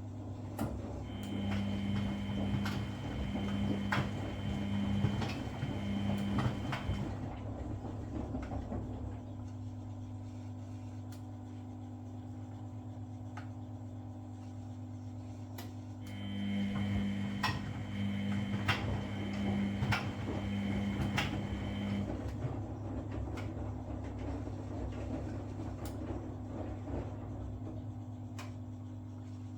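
Front-loading washing machine in its wash phase: the motor turns the drum for about six seconds with a whine and soft knocks, pauses for about nine seconds, then turns the drum again for about six seconds. A steady low hum runs underneath.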